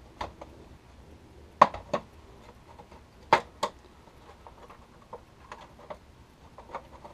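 Plastic retaining clips on a GM truck instrument cluster's clear lens and front bezel snapping loose as the piece is unclipped by hand. The sound is a series of sharp plastic clicks, the loudest in two quick pairs about a second and a half in and again about three and a half seconds in, with lighter plastic taps and ticks between.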